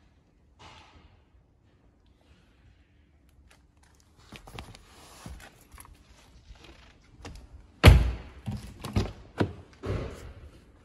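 Thuds and knocks from a car's door and body being handled: rustling from about four seconds in, then one loud thump about eight seconds in followed by several smaller knocks.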